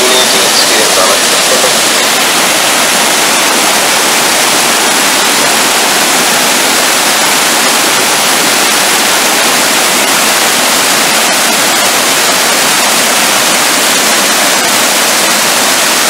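Small waterfall pouring down a rock face and splashing over rocky cascades, heard close up as a loud, steady rush of water.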